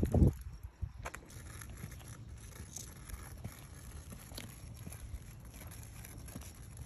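Footsteps of a person walking slowly on concrete, heard as faint irregular taps over a low steady rumble of outdoor noise and mic handling. A single heavy thump right at the start is the loudest sound, with a sharp click about a second in.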